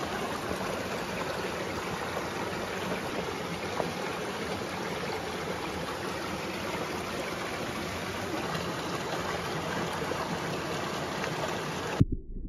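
Small mountain stream running over rocks: a steady rush of flowing water. Near the end it cuts suddenly to a muffled, low underwater rumble.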